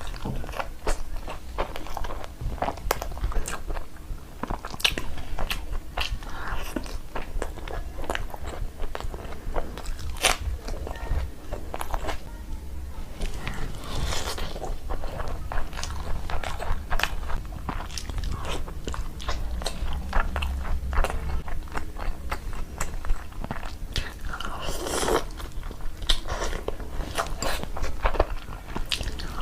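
Close-up eating sounds: a person biting and chewing food, with many short, sharp mouth clicks and crunches coming irregularly throughout.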